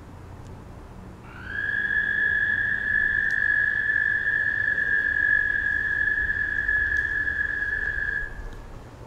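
A small backyard creature, insect or frog, giving one long, loud, high-pitched trill that holds a steady pitch. It starts about a second in, rises in pitch at its onset and stops shortly before the end.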